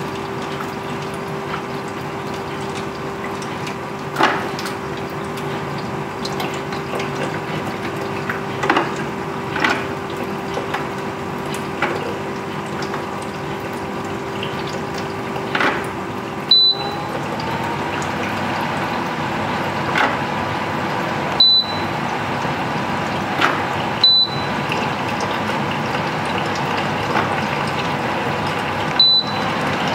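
Honeywell ES800 evaporative air cooler running: its fan blows steadily while its pump trickles water through the cooling pad, with faint scattered clicks. About halfway in, a steady hum gives way to a higher one, and the control panel gives four short beeps over the second half.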